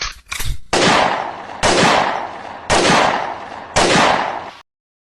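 Gunshot sound effect: a couple of short cracks, then four loud shots about one a second, each trailing off in a fading echo.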